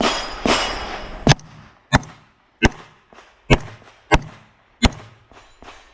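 Rifle shots fired in a steady string, about seven of them roughly two-thirds of a second apart, each followed by a short echo.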